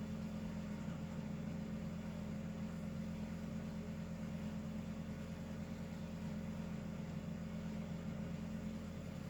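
Steady low hum with a constant hiss over it, unchanging throughout; no snoring or breathing rhythm stands out.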